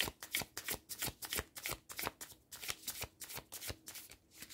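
A deck of oracle cards being shuffled by hand: a steady run of short card strokes, about four a second.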